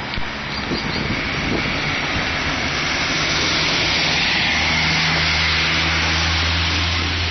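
Car driving on a wet road: steady tyre hiss over the engine's low hum. The noise swells to its loudest about halfway through, and the hum grows stronger in the second half.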